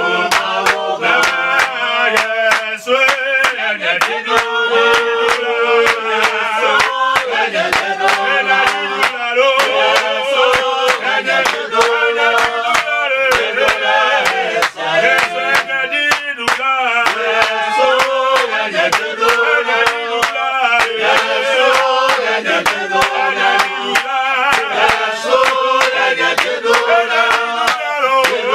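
Men singing a worship song together, with steady rhythmic hand clapping in time.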